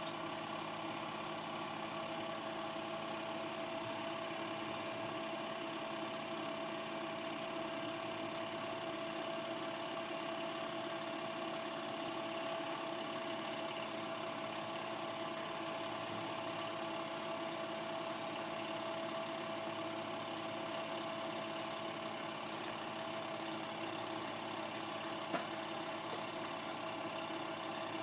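Home-movie film projector running: a steady mechanical whirr and hum from its motor and film transport, with one small click near the end.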